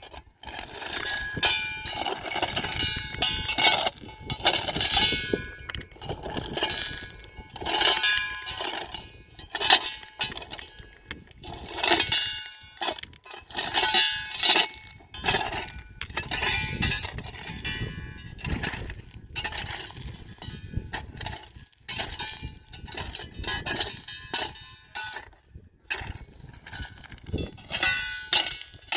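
Livestock bells clanking and ringing irregularly, several bells at once, as a herd moves about.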